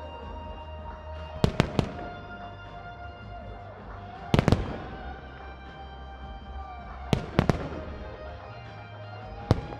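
Aerial firework shells bursting in quick groups of two or three sharp bangs, about every three seconds, over music from the show's loudspeakers.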